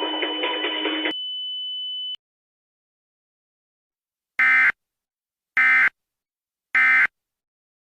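A steady high-pitched tone, over other sound for its first second, cuts off about two seconds in; then three short Emergency Alert System end-of-message data bursts (SAME digital code) sound about a second apart.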